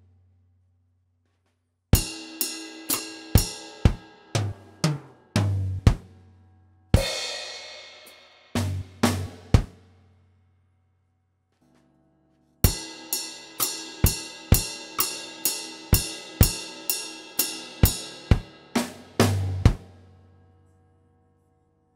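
Acoustic drum kit played in two short phrases separated by pauses: first a few drum hits with a cymbal crash ringing out about seven seconds in, then a steady beat of cymbal, snare and drum hits that fades out near the end.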